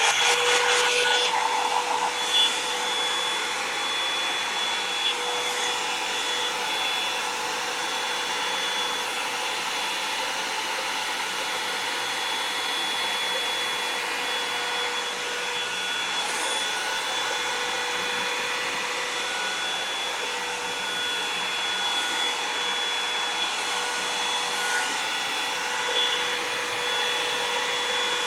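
Revlon One-Step hair dryer and volumizer running steadily, a blowing fan noise with a high whine. It is a little louder for the first couple of seconds, then settles.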